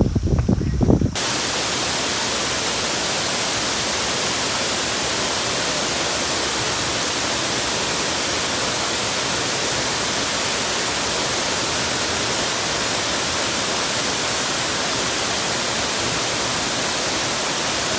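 Steady, even hiss like static or white noise, cutting in suddenly about a second in and holding at one level, after a brief low rumble of wind or water.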